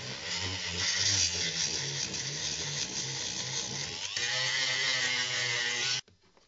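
Handheld rotary tool with a small abrasive bit grinding the polymer grip of a Glock 17 frame. It gives a steady, high-pitched grinding whine that changes to a steadier pitched whine about four seconds in. It cuts off suddenly about six seconds in.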